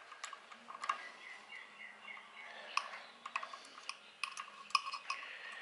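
Scattered light metallic clicks and taps as a hex key works the set screw on the lower belt gear of a Prodigy longarm quilting machine.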